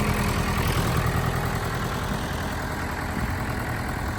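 Case 580 Super K backhoe's Cummins 4BT four-cylinder diesel idling steadily, running clean with no knocking or ticking.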